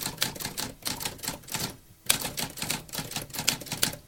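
Typewriter keys clacking in quick runs of sharp strikes, with a brief pause about halfway through.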